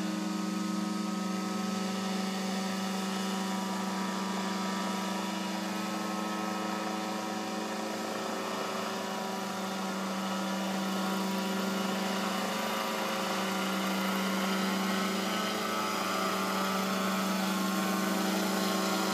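Remote-controlled crop-spraying helicopter in flight: a steady drone from its engine and rotor, holding one pitch and growing a little louder in the second half as it comes closer.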